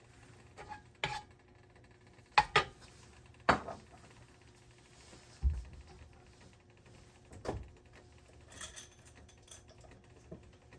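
Scattered knocks and clinks of cookware and kitchen utensils being handled on the counter, with a dull thud about halfway through.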